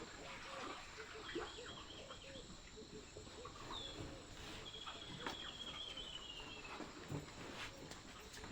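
Bird calls against a faint outdoor background: a series of short high chirps, then one long trill that falls slightly in pitch, with scattered small knocks.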